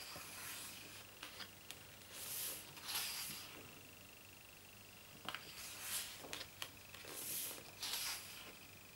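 Glossy pages of a photobook turned by hand: two soft paper swishes, about five seconds apart, each with light taps and crinkles of the paper.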